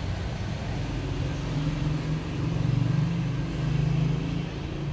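An engine running as a low, steady hum that grows louder about one and a half seconds in and eases off near the end.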